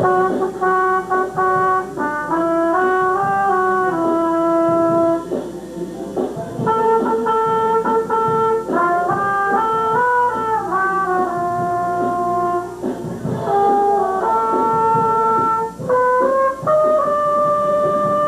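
Instrumental music led by brass instruments playing a slow melody of long held notes, in phrases with short breaks between them.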